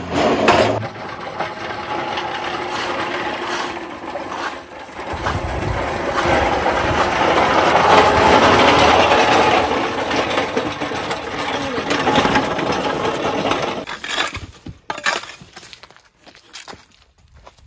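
Loaded engine hoist rolling on its steel casters over concrete and pavement, a steady rattling rumble. Near the end, a few sharp knocks and cracks of a shovel chopping ice.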